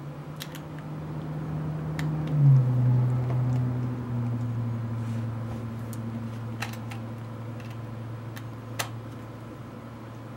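Small metal clicks of a precision screwdriver and screws against a DSLR's plastic body as its back screws are driven in, a handful of times. Under them runs a steady low machine hum, like a fan, which drops in pitch and swells to its loudest about two and a half seconds in.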